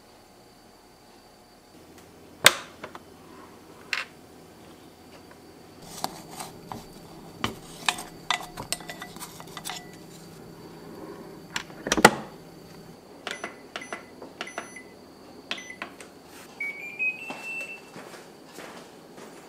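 Kitchen handling sounds: a run of sharp clicks and knocks, two louder knocks about 2.5 and 12 seconds in, over a low steady hum. Short electronic beeps come between about 13 and 17 seconds in, ending with a brief rising run of tones.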